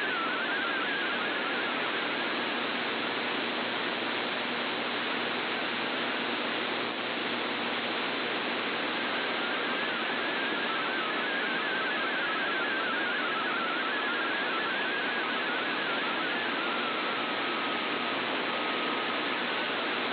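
Shortwave radio audio: heavy static hiss with a weak MFSK32 digital data signal warbling in quick-changing tones under it, fading in and out with the poor reception. Near the end a brief steady single tone sounds.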